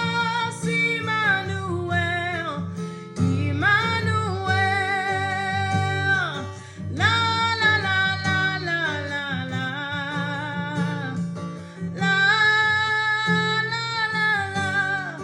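Gospel worship song: a sung melody in long held notes with vibrato over acoustic guitar.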